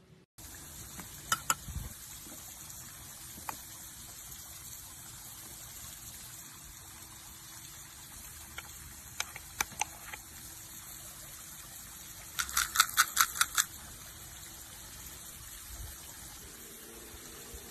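Steady hiss with a few sharp clicks scattered through it. About three-quarters of the way in comes a quick run of about eight clicks in a second.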